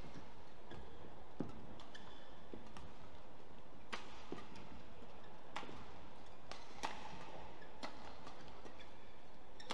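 Badminton racquets striking a feather shuttlecock during a doubles rally: sharp, separate pocks roughly every second or so, over steady hall ambience.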